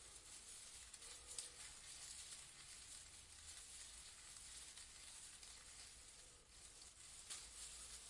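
Faint, steady rustling of leaves in a breeze, a soft hiss with a couple of brief louder rustles.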